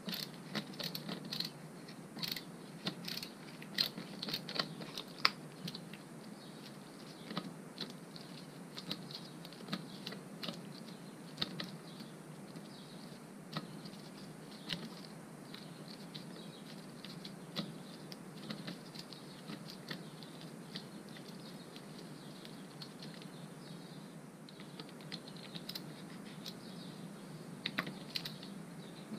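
Irregular small metallic clicks and taps of a hand tool working the clutch spring bolts on a Derbi Euro 4 moped engine's clutch pressure plate, denser in the first few seconds and again near the end.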